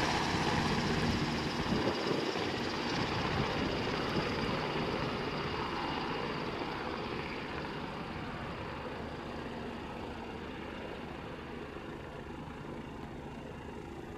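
Airbus NH90 military helicopter in flight: the steady sound of its main rotor and twin turbines, gradually fading away.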